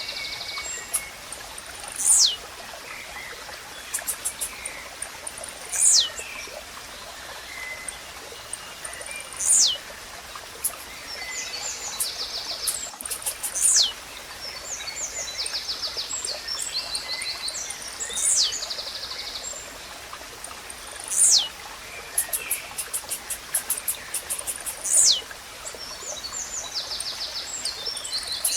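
Blue-black grassquit (tizil) repeating its short, high song, a note that sweeps steeply down in pitch, seven times at intervals of three to four seconds. Under it runs a steady stream of flowing water, with rapid trills of other birds between the songs.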